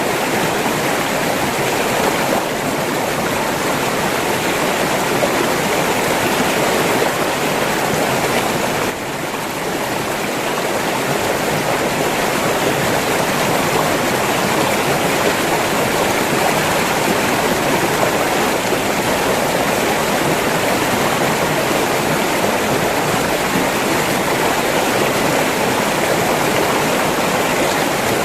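River water flowing, a steady full rush with a brief dip in level about nine seconds in.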